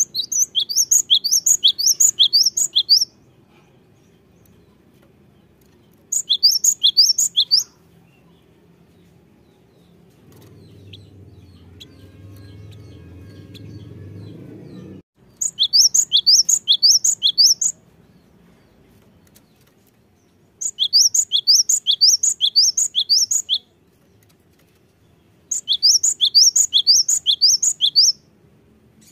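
Cinereous tit (gelatik batu) singing loudly in five bursts of rapid, high, repeated notes, each lasting a second and a half to three seconds, with pauses between them. A faint low rumble rises midway and cuts off suddenly.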